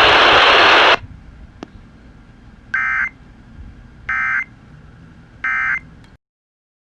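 A loud, steady hiss that cuts off about a second in, then three short, identical bursts of warbling data tones about 1.4 s apart. This is the Emergency Alert System end-of-message (EOM) code, which marks the end of the alert broadcast.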